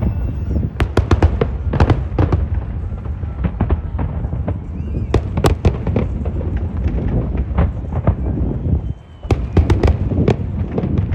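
Fireworks display: a rapid string of sharp bangs and crackles over a continuous low rumble of further bursts, with a brief lull about two seconds before the end.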